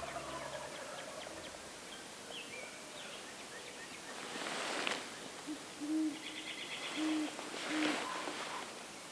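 Owl hooting: a short series of about four low hoots in the second half, over faint birdsong in dawn woods.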